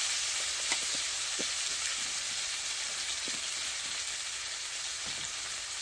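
Chili powder and minced garlic sizzling in hot canola oil in a frying pan, an early stage of making chili oil. It is a steady hiss with a few small pops.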